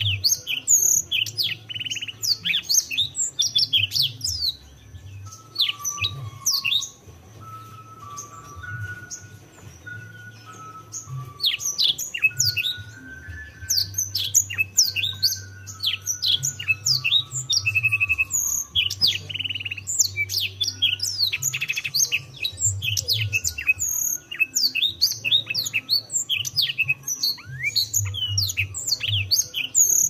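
Canary singing a long song of rapid chirps and trills, with a run of lower whistled notes stepping up and down partway through and a softer stretch about a quarter of the way in.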